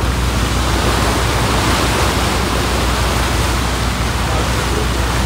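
Churning propeller wash behind a moving tour boat: a loud, steady rush of water over the constant low hum of the boat's engine.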